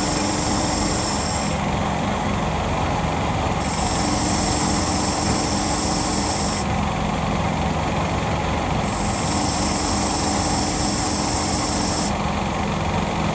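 CNC machine cutting a steel flange: steady machine noise with a high-pitched whine that comes and goes in passes about every five seconds.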